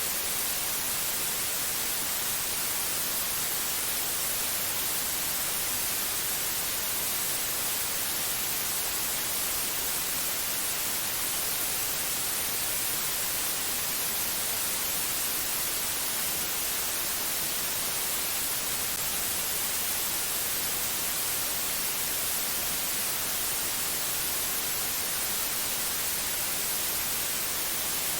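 Steady white-noise hiss, even and unchanging, heaviest in the treble.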